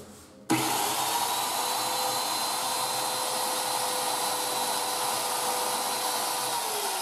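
A 1969 Black & Decker hand drill driving a circular-saw table kit, switched on about half a second in and running the blade free at full speed with a steady motor whine, then starting to spin down near the end. The blade is wobbling on a remade mounting bolt whose thread the owner assumes was not cut straight.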